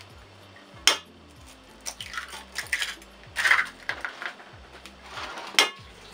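Eggs cracked one after another on the rim of an enamel bowl: a sharp crack about a second in and another near the end, with softer shell handling and the egg dropping into milk between.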